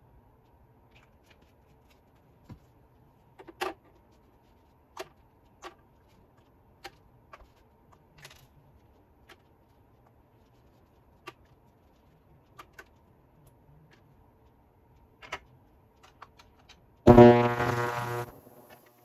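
Scattered small clicks and taps of parts being handled, a dozen or so spread over the first seventeen seconds. About two seconds before the end a loud droning buzz with many overtones starts suddenly and runs to the end.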